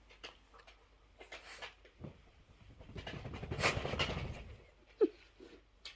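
A dog breathing noisily after a fit of sneezes. One long, noisy breath swells and fades about three to four seconds in, and a short whine comes near the end.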